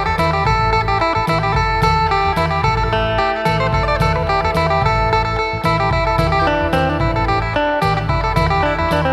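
Thai phin (Isan plucked lute) played through a contact pickup: a quick plucked melody over a steady drone note.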